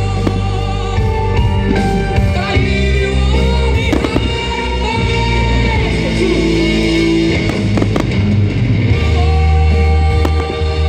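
Music playing loudly over a fireworks display, with several firework bursts banging through it, one every few seconds.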